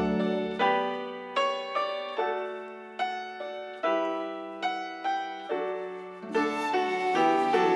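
Music: a slow solo keyboard passage, piano chords struck one at a time, roughly once or twice a second, each ringing and fading away. A fuller accompaniment comes in about six seconds in.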